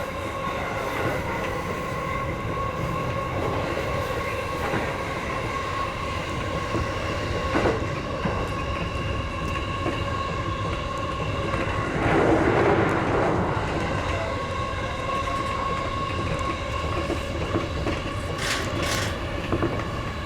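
JR E233-series electric train running, heard from the driver's cab: steady rolling noise with wheel clatter and a steady motor tone. About 12 seconds in, a louder rush lasts a couple of seconds as an oncoming E233 passes, and a brief clatter comes near the end.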